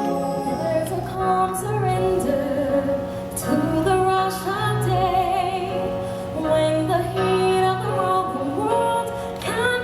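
Music with a female voice singing a sustained melody, with vibrato, over instrumental backing.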